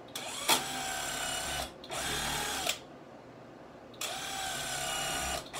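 Cordless drill driving wood screws into a 2x4 shelf frame in three runs, the first about a second and a half long, the motor's pitch dipping as each run ends. A sharp click about half a second in is the loudest moment.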